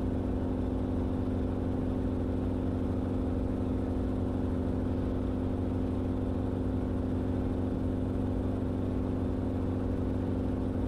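Enstrom helicopter in cruise flight, heard from the cabin: a steady, even drone of engine and rotors with a fixed low hum and several steady tones, unchanging throughout.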